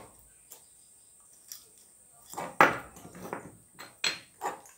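Small plastic and metal LED bulb parts (housing, aluminium cap) being handled and set down on a workbench. A cluster of knocks and clatter comes about halfway through, followed by a few lighter clicks.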